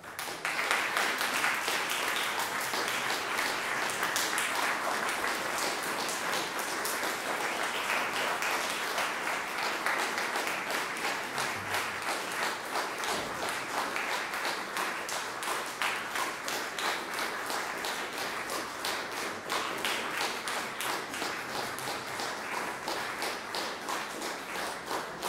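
Audience applauding: dense, steady clapping that keeps up throughout, easing slightly toward the end.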